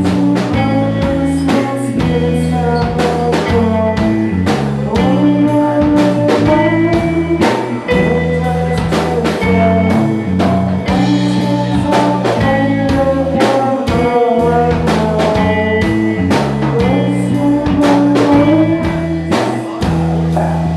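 Live psychedelic rock band playing: a drum kit keeps a steady beat under held bass notes and guitar, with a voice singing a gliding melody over it.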